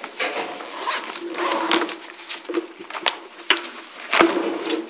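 Rustling and handling noises as papers and belongings are gathered up, with three sharp knocks in the second half, the last one the loudest.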